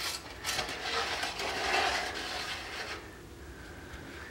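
A magnet rolled and rubbed around the bottom of an aluminum pan of dirty diesel fuel, scraping and ticking against the metal. It quiets about three seconds in.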